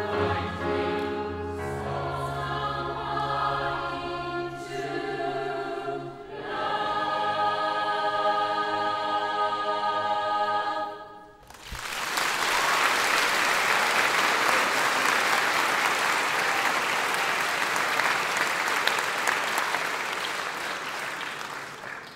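Mixed choir with piano singing the last phrases of a song, ending on a long held chord about eleven seconds in. Then the audience applauds for about ten seconds, fading near the end.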